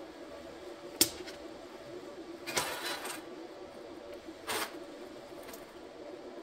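Thin sheet-metal band handled against a metal disc and steel workbench: a sharp metallic click about a second in, then two short scrapes, over a steady low hum.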